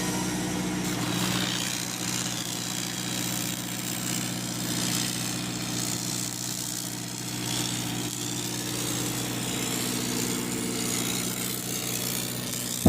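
An engine running steadily at an even idle, a constant low hum with no change in speed.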